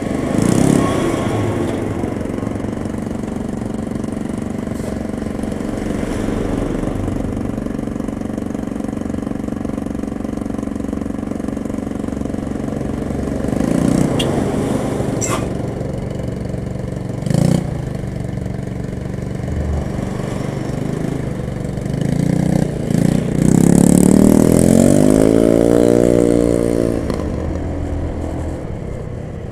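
Heavy diesel trucks running close by as they creep past one after another, over a steady idling engine, with a single knock about halfway through. Near the end an engine revs up, its pitch rising and then falling away.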